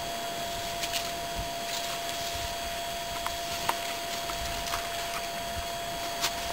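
A few scattered dry cracks and snaps of twigs and branches breaking as African elephants browse in the trees, over a steady hiss with a faint high whine.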